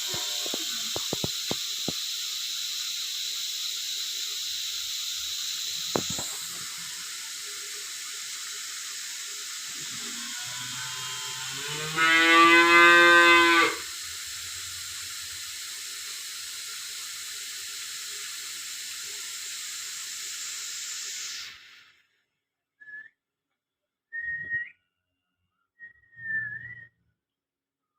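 Steady hiss of a water shower spraying, which cuts off suddenly after about 21 seconds. About 12 seconds in there is one loud pitched call lasting under two seconds, and faint short chirps follow near the end.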